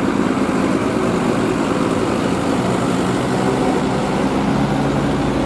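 Diesel engine of a bus running steadily close by as it drives off, a low steady hum over road noise.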